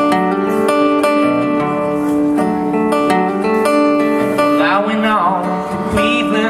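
Acoustic guitar strummed in a steady rhythm between the sung lines of a folk song, with a brief wavering voice-like tone about five seconds in.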